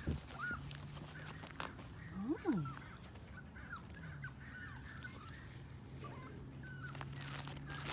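Outdoor sidewalk ambience: a steady low hum, scattered short bird-like chirps, and one brief rising-and-falling call about two and a half seconds in.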